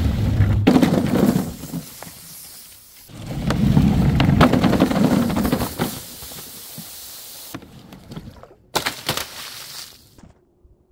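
Something brittle being crushed and broken: two long stretches of dense crackling and crunching, each lasting a couple of seconds, then a short sharp crack near the end.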